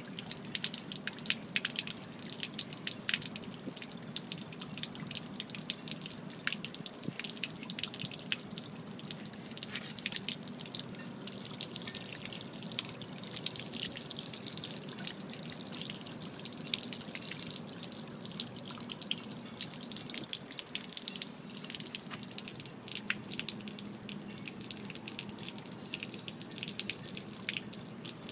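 Water running out of the open hull drain of a Mako Pro Skiff and splattering onto pavement as a steady stream with a constant patter of drops. It is water that got into the hull during a single day afloat with the live well and aerator unused, a leak that has kept it running for minutes without stopping.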